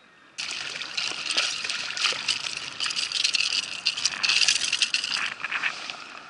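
Water splashing and spattering as a small bluefish is lifted from the water and thrashes on the line, starting abruptly about half a second in.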